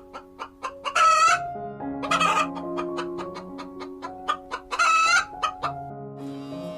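A chicken calling three times in short, loud squawks over background music that has a steady plucked beat and held notes.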